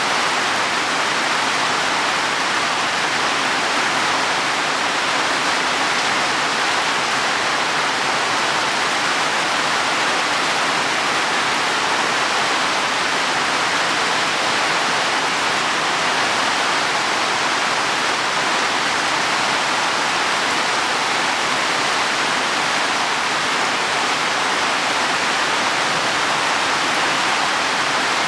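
Heavy rain falling on leaves and soil, a steady dense hiss with no separate drops standing out.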